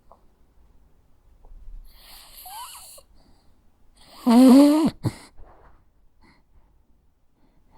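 Jack Russell Terrier snoring in its sleep: a faint whistling breath about two seconds in, then a much louder, pitched snore lasting under a second about four seconds in, followed by a short breath.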